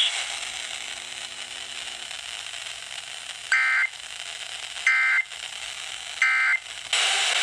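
Three short, identical bursts of the Emergency Alert System end-of-message data signal, a two-tone digital SAME code sent over NOAA Weather Radio, spaced a little over a second apart. It plays over a steady radio hiss, which jumps louder near the end; the bursts mark the close of the flash flood warning broadcast.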